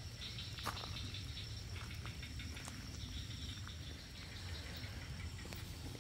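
A night chorus of insects and frogs: a steady high insect trill with a rapid pulsing call beneath it, and a few faint clicks.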